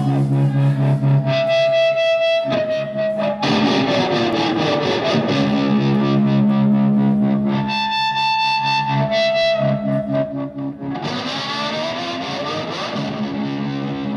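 Live electric guitar through distortion and effects, playing long sustained notes with slow sliding pitch bends and a few held high notes.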